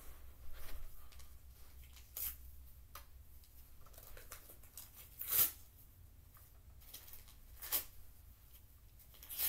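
Paper being torn by hand: a few short rips, about two, five, seven and a half and nine seconds in, the one about five seconds in the loudest, with faint paper rustling between them.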